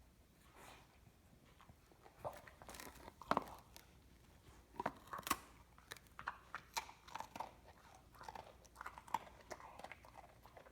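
A biscuit being bitten and chewed: irregular crunches, starting about two seconds in and continuing in uneven bursts.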